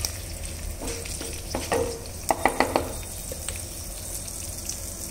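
Hot oil sizzling in a pan as a tempering of dried red chillies, curry leaves, mustard seeds and lentils fries, stirred with a wooden spatula. A quick run of sharp clicks comes a little after halfway.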